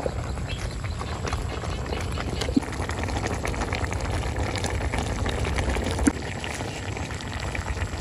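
Snail and young bamboo soup boiling in a wok, a steady bubbling and crackling with a few soft knocks.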